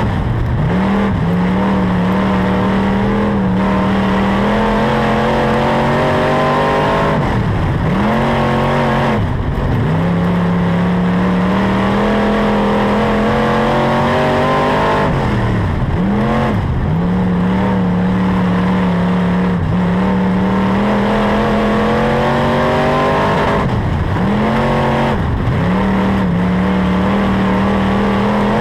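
IMCA SportMod dirt-track race car's V8 engine heard from inside the cockpit, running hard at high revs. Every lap or so the note falls sharply as the driver lifts for the corners, then climbs back up on the straights.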